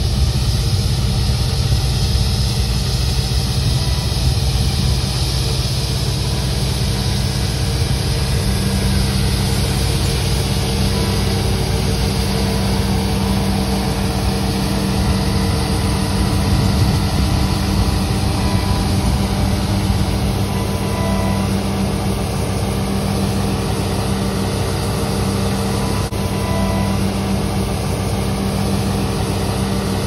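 John Deere combine harvester running steadily while it unloads soybeans through its auger into a grain truck.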